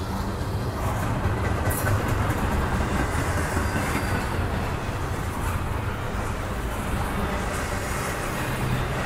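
Double-stack intermodal container cars of a long freight train rolling past: a steady, low-heavy rumble of steel wheels on the rails.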